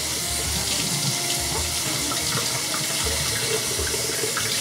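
Kitchen faucet running steadily into a metal sink, the stream splashing over hands and a sharpening stone held under it to wet the stone before sharpening.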